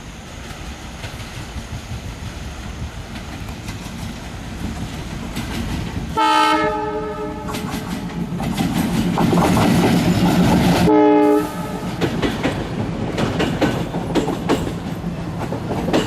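Indian Railways locomotive horn sounding two short blasts, about six and eleven seconds in, over the rising rumble of an approaching train and the steady clickety-clack of its wheels as it passes.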